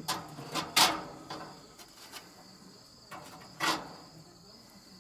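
Gas barbecue igniter clicking a few times with sharp clicks, the loudest about a second in and another near four seconds, but the burner does not light; the speaker says the gas isn't coming through. Crickets chirp steadily behind.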